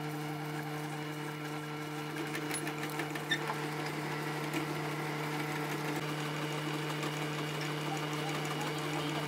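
Manual metal lathe running with a steady hum as a tool bit turns down a thin metal firing pin, with faint scratchy cutting sounds and a small tick a little past three seconds in.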